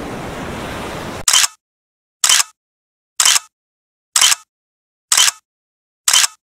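Ocean surf noise for about a second, then cut off, followed by six sharp camera-shutter clicks about once a second with dead silence between them.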